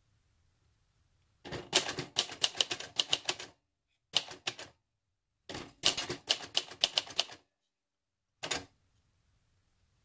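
Keys of a 1966 Singer Professional T-62 manual typewriter, a rebranded Royal Safari, striking the paper in quick runs of clacks. A run starts about a second and a half in, then comes a short run, another run, and one single strike near the end.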